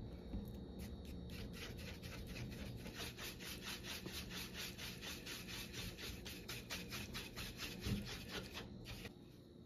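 Spatula stirring hair dye mixed with developer in a plastic bowl: a quick, even scraping of about four to five strokes a second that starts about a second in and stops shortly before the end.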